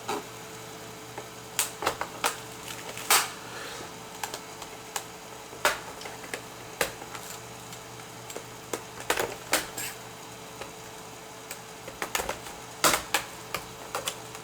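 Irregular sharp plastic clicks and snaps, a couple of dozen spread unevenly, as the keyboard section of an Asus P553M laptop is lifted up off its base, over a faint steady hum.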